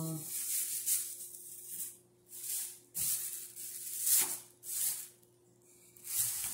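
Close rustling in several separate bursts with short pauses between them, over a faint steady low hum.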